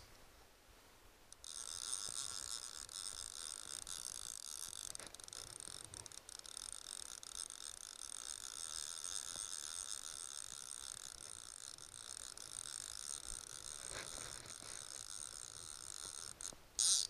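Fly reel's click-and-pawl ratchet buzzing steadily under a hooked salmon, starting about a second and a half in and holding for some fifteen seconds, then a short louder burst near the end.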